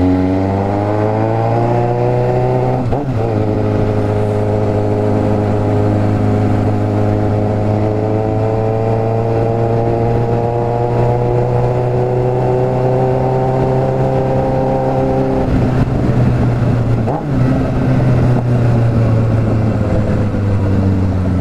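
Suzuki GSX750F's inline-four engine through an open straight pipe, heard from the bike while riding. It revs up through a gear in the first three seconds, shifts, climbs slowly and steadily, changes about fifteen seconds in, and winds down near the end. The rider finds it running rich at low revs.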